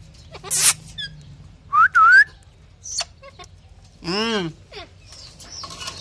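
Alexandrine parakeet calling in short separate bursts. First a harsh high screech, then two loud short rising whistles about two seconds in, and a longer rising-and-falling squawk a little past four seconds.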